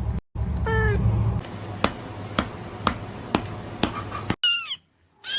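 A cat meows briefly, falling in pitch, then a row of sharp clicks about two a second, then another short falling meow near the end.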